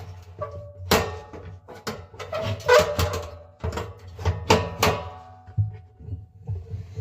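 Irregular knocks and clanks inside a washing machine drum, each followed by a short metallic ring.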